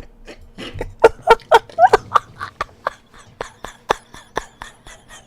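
A person laughing helplessly in a breathless wheeze: a run of sharp gasping bursts about four a second, loudest and partly voiced at first, then thinning out.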